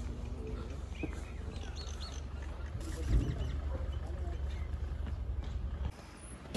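Small birds chirping faintly over a steady low outdoor rumble, with a soft low thump about three seconds in.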